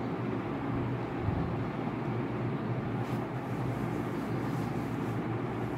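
Steady low background hum with no pauses, with a few faint soft strokes about three to five seconds in.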